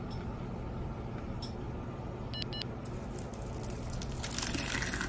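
Steady low rumble like passing traffic, with two quick high electronic beeps about halfway through, then bright jingling and clinking that starts near the end.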